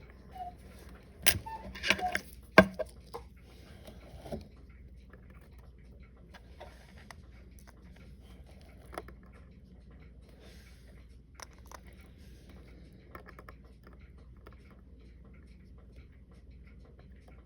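Small sharp clicks and taps of metal tools and tiny watch parts being handled during the disassembly of a watch, a cluster of them in the first few seconds and only faint scattered ticks afterwards.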